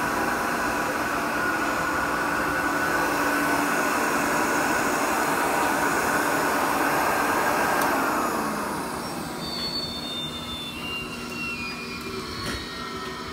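1950s Airway Sanitizor Model 66 vacuum cleaner motor running steadily, then switched off about eight seconds in and spinning down with a falling whine. Faint high squeaks come through during the spin-down, a little bearing noise that the owner thinks lubricant could fix. A single click near the end.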